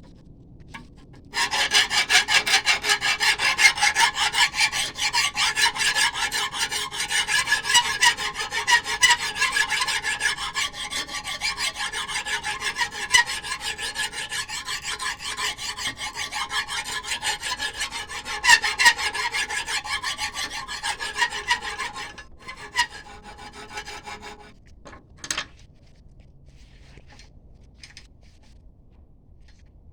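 Hand file rasping on a steel spearhead in quick, even strokes, starting about a second in and stopping about three-quarters of the way through, then a few short scrapes.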